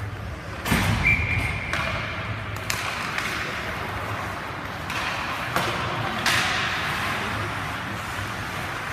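Ice hockey play echoing in an arena: a few sharp knocks of sticks, puck and boards over a steady rink hum. A short, steady high tone comes about a second in.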